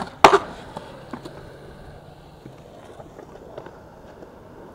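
Skateboard on concrete: a sharp clack of the board striking the ground about a quarter second in, then only faint, scattered light knocks.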